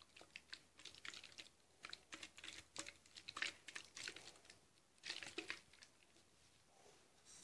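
Faint irregular clicking and rustling, several small clicks a second, thinning out after about five and a half seconds.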